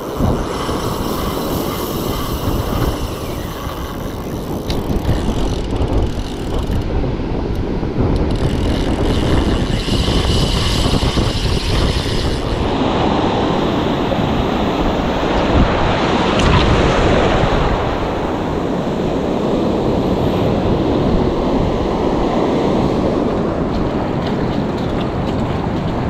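Strong wind buffeting the microphone over the steady wash of surf breaking on a sandy beach.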